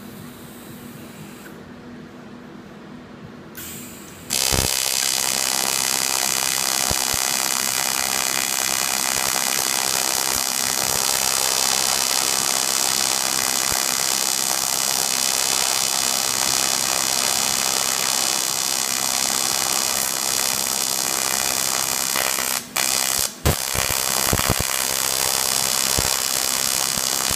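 TIG welding arc on thin 1/16-inch aluminum buzzing steadily, striking about four seconds in and dropping out twice for a moment near the end. The welder is set with not quite enough heat for the aluminum.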